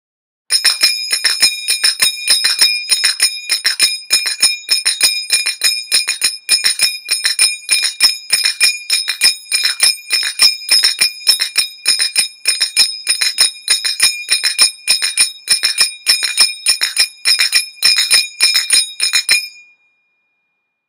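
Finger cymbals (zills) playing the triple pattern at full speed: a fast, even run of strokes in groups of three, bright metallic ringing carrying over from stroke to stroke. The playing starts about half a second in and stops near the end, a last ring dying away briefly.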